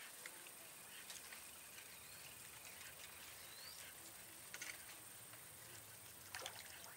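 Near silence: faint outdoor ambience with a few soft clicks and one short, faint rising chirp about four seconds in.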